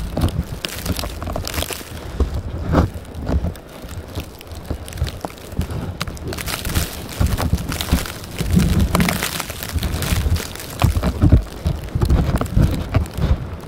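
Blizzard wind gusting against the microphone in uneven surges that rise and fall every second or two.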